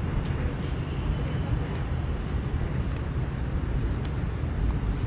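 Steady low outdoor rumble from an open field recording, with faint distant voices and a few light ticks.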